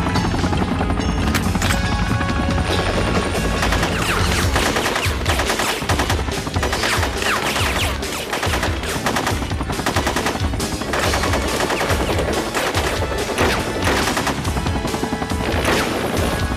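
Rapid automatic gunfire from a rifle fired out of a hovering helicopter, many shots in quick succession, over the helicopter's rotor noise.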